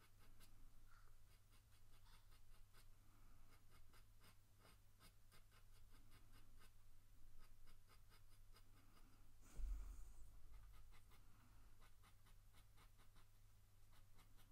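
Faint scratching of a coloured pencil on paper in quick, short strokes, with a single thump about ten seconds in.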